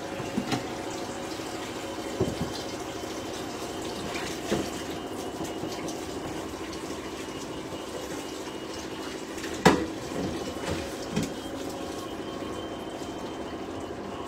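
Linguine with lobster in tomato sauce simmering and bubbling in a steel pan, with a few sharp pops of the thick sauce, the loudest about ten seconds in.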